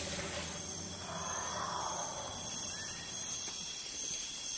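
Insect chorus of crickets, a steady high-pitched trilling with a softer hiss underneath for a couple of seconds.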